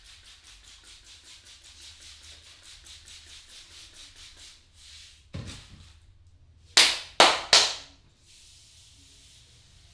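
Barber's hands patting rapidly on a head during a head massage, a quick even patter, then a dull thump about five seconds in and three loud, sharp smacks in quick succession a little later.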